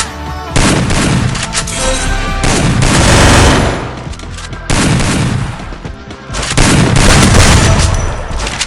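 Video game automatic gunfire in two long bursts, the first about half a second in and lasting some three seconds, the second starting about six and a half seconds in, over a pop song playing underneath.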